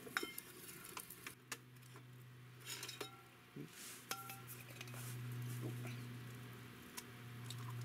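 A wooden lid set down on a cast-iron pot, then scattered light clinks and taps from a small stainless steel cup being handled, some with a brief ring. A low steady hum runs underneath.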